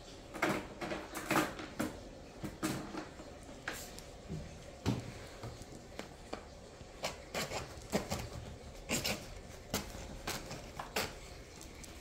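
Irregular clicks, knocks and scrapes of a knife cutting and prying at a hard plastic water-filter cartridge, with a few sharper snaps along the way.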